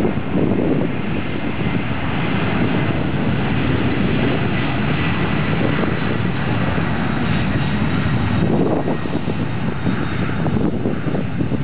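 Jet airliner engines running at taxi power: a steady rush of engine noise with a faint high whine on one pitch that fades about two-thirds of the way through.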